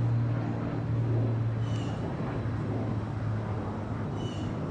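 Steady low drone of distant road traffic, with two short high chirps about two and a half seconds apart.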